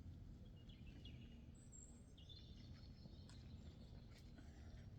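Near silence: a low outdoor rumble with a few faint high bird chirps between about one and three seconds in.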